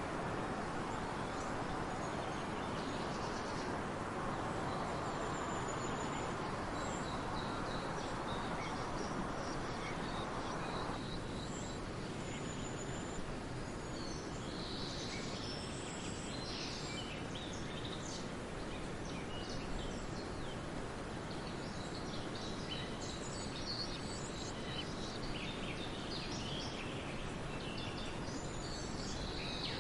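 Small birds chirping and twittering in short, high calls over a steady rushing background noise; the chirping grows busier from about halfway through.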